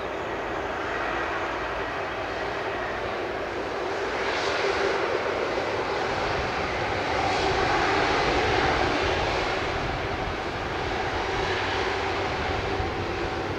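Airbus A330-300 jet engines at taxi thrust as the airliner turns onto the runway to line up: a steady jet whine and rush that swells slightly twice, about a third of the way in and again past the middle.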